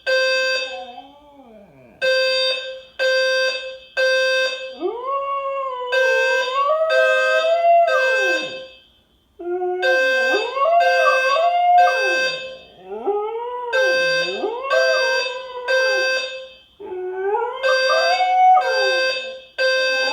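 A dog howling along with a beeping fire alarm: a short howl, then a series of long howls that rise and fall in pitch, over the alarm's steady repeating beeps.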